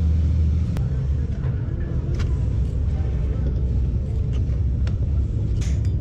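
Low steady mechanical rumble, like an engine running, with a few sharp clicks scattered through it.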